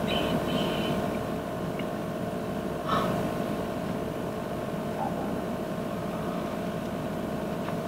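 Truck engine idling with a steady hum, a short faint sound rising over it about three seconds in.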